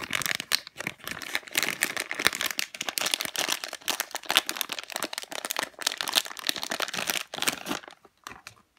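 Thin plastic bag crinkling and rustling as a squishy toy is worked out of it by hand. The crinkling stops just before the end.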